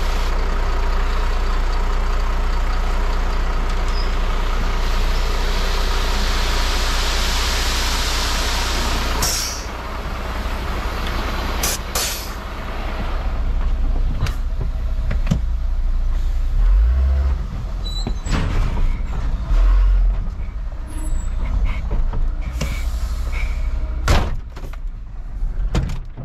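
Truck engine running steadily to power the Hiab 102 loader crane, with a hiss that swells and ends in a sharp burst of air about nine seconds in. After it comes a string of metallic clunks and knocks with a couple of deep thumps.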